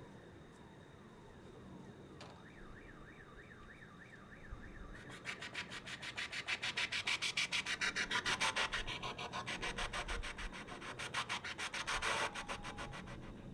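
Trumpet played with extended technique: unpitched breath noise forced through the horn in a rapid rasping pulse, several pulses a second. It comes in about five seconds in and grows louder, after faint small falling squeaks.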